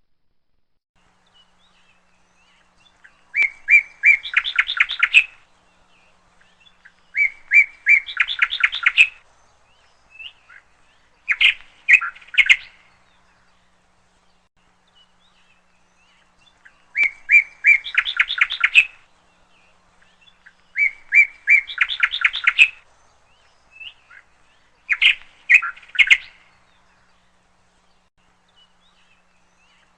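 A songbird singing, repeating the same short song six times with gaps of a couple of seconds: each song is a few clear notes followed by a fast trill.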